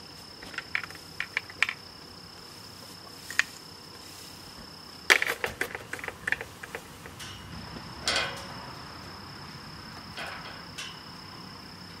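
An insect's steady high trill, cutting out briefly a little past the middle, under several runs of sharp clanks and rattles, the loudest cluster about five seconds in.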